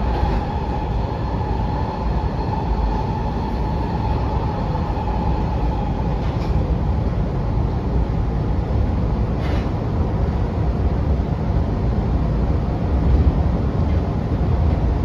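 Washington Metro 6000-series railcar running at speed, heard from inside the car: a steady rumble of wheels on rail, with a high tone that fades over the first few seconds and two faint ticks later on.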